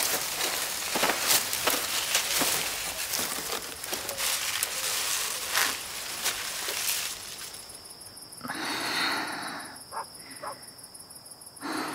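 Dry branches and leaves rustling, with twigs cracking, as branches are gathered for a shelter: a dense crackling for about seven seconds, then quieter, with a few separate rustles.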